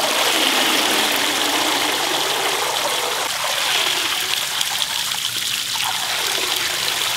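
Garden hose water running steadily into a cooler full of water, splashing as autumn olive berries are tipped in from a plastic colander to wash them.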